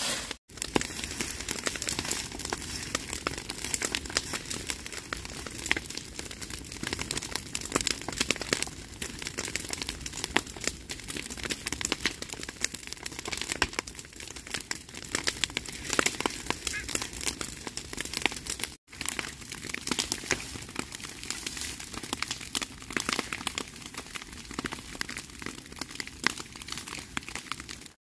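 Dry grass, leaves and cut stalks crackling as they burn, mixed with the rustle of dry brush being stirred and pushed with a long pole. A dense, continuous crackle of many small pops.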